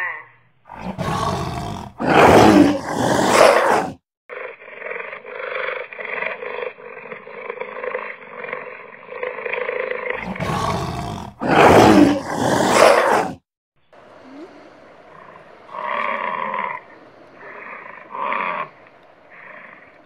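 Animal roars: two loud, long bouts with steadier pulsing calls between them, then softer separate calls.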